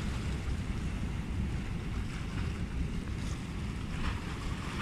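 Wind buffeting the microphone in a steady low rumble, over the wash of sea swell against a rock breakwall.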